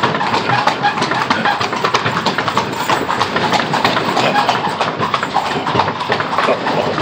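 Horse's hooves clip-clopping at a brisk pace on a hard, uneven stone road, mixed with the rattle and knocking of the horse-drawn carriage jolting over the bumps.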